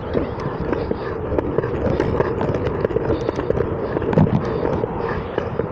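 RipStik caster board rolling along a concrete sidewalk: a steady rolling rumble of the wheels with frequent clicks and knocks.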